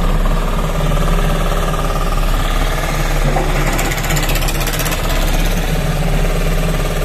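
A fishing trawler's inboard diesel engine idling steadily, a constant low, even throb.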